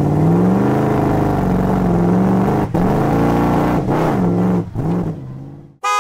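An engine revving: the pitch climbs about half a second in, then rises and falls in several surges, and fades out near the end.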